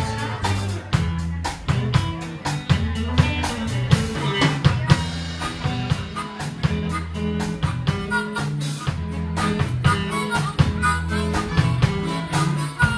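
Live blues band: an amplified harmonica plays a solo over a drum kit, a steady bass line and electric guitar.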